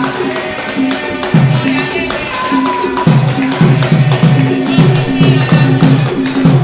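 Batá drums played by hand in an interlocking rhythm: deep open strokes repeat under lighter, higher slaps and taps, quickening to about three deep strokes a second from about three seconds in.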